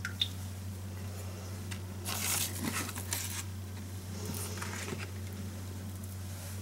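Faint handling noises of raw chicken tenderloins being set down and arranged by hand on a wooden cutting board: a brief click just after the start, then soft rustles, over a steady low hum.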